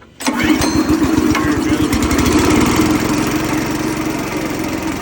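The small gas engine of a portable air compressor catches on a pull-start about a quarter second in and keeps running. Its firing quickens over the first couple of seconds, then settles into a steady run. This is its first start after years of sitting, on a new carburetor, gas tank and spark plug.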